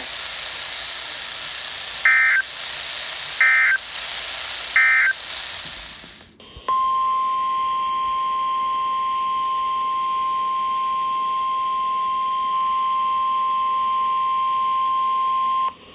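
Weather-radio alert signalling over a hiss of static: three short, loud bursts of SAME digital data, the brief end-of-message code, then a click. After the click comes a steady single-pitch 1050 Hz NOAA Weather Radio alert tone held for about nine seconds.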